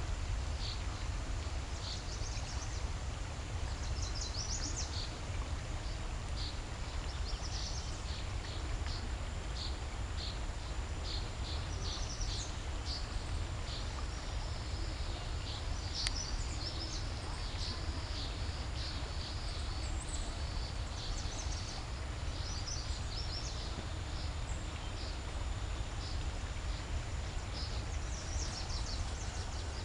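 Outdoor ambience: birds chirping in short high calls on and off, over a steady low rumble of wind on the microphone.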